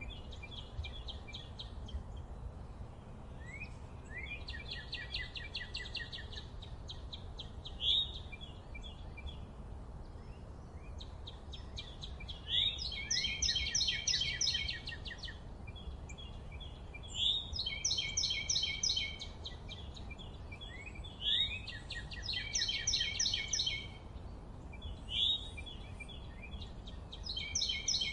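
A songbird singing in the forest, repeating the same phrase every few seconds: a quick upslurred note followed by a fast, rattling trill. A steady low rumble runs underneath.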